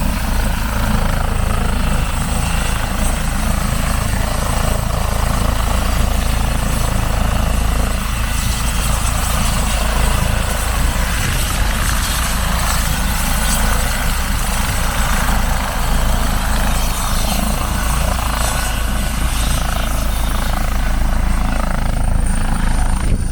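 A helicopter running close by: steady, loud rotor and engine noise, with a faint high whine that rises slightly near the end.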